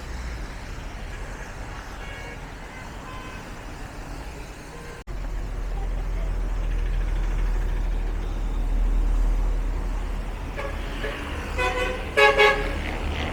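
Street traffic rumbling steadily, with a vehicle horn sounding near the end in a couple of short honks.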